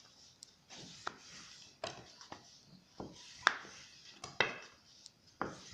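Rolling pin rolling out a ball of yeast dough thin, with irregular knocks and rubbing; the sharpest knocks come about three and a half and four and a half seconds in.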